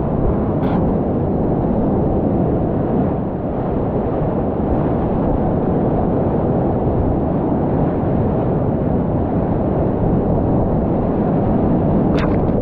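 Steady, heavy roar of a whitewater river rapid at high flow, heard from a kayak in the current, mostly low rushing. Two short sharp splashes, one about half a second in and one near the end.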